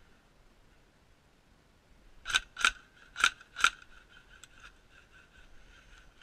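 Four sharp snapping shots from an airsoft rifle fired close by, in about a second and a half, each cracking out in turn.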